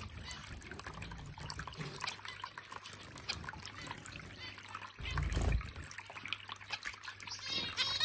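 Small pet-bird fountain running: water jets falling back into the basin with a steady trickle and splash. A low thump comes about five seconds in, and a few short high finch chirps near the end.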